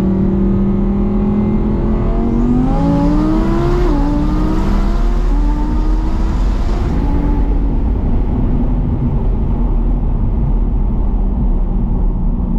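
Twin-turbo Audi R8 V10 heard from inside the cabin, accelerating hard: the engine note climbs in pitch through two or three quick upshifts over a loud rushing noise, then eases off into steady road and wind noise after about seven seconds.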